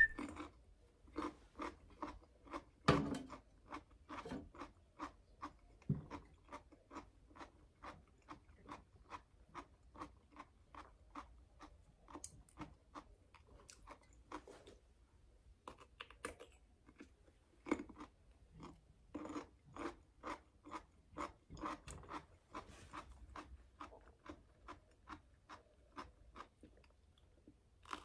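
A person chewing a crunchy pickled cucumber stick: faint, regular crunches about twice a second, with a louder bite about three seconds in and another near eighteen seconds.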